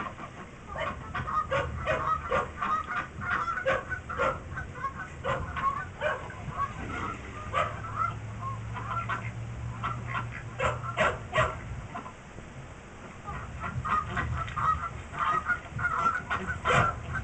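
Geese honking: a flock calling over and over in short honks, played through a television's speakers.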